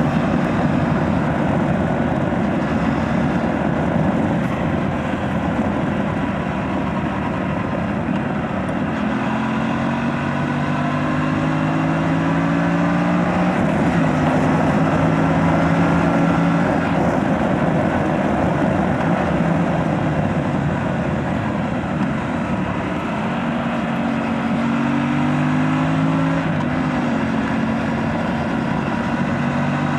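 Aprilia RS 457's parallel-twin engine on its stock exhaust, heard while riding, over a steady wind rush. The engine note climbs twice under acceleration, each climb ending in a drop at a gear change.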